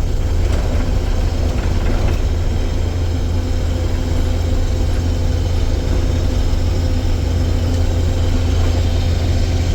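Combine harvester running steadily while harvesting soybeans, a constant low engine and machine hum.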